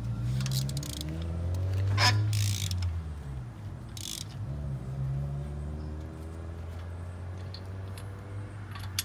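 Car engine pulling away and accelerating: its note climbs, drops as it changes gear, climbs again and then runs steadily. There are a few short rattling clicks about two and four seconds in.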